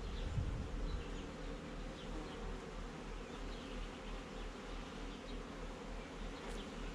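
A colony of honeybees buzzing in a steady hum around an opened hive.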